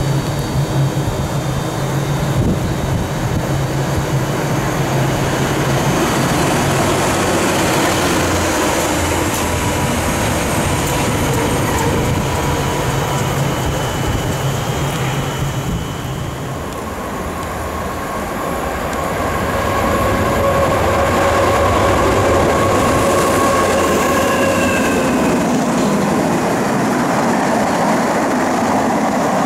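Steady low hum of a train at a station platform, then, from about 17 seconds in, the louder rolling rumble of a freight train's container flat wagons passing at speed, with faint high squealing tones.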